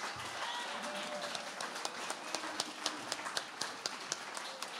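Scattered clapping from a small audience, sharp irregular claps picking up about two seconds in, over low crowd chatter.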